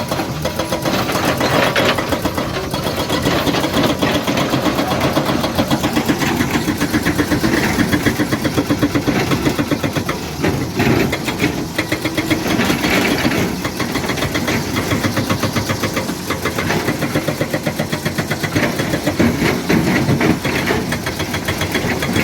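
Excavator's diesel engine running steadily with a fast, even chug, its level rising and falling a little as the machine works.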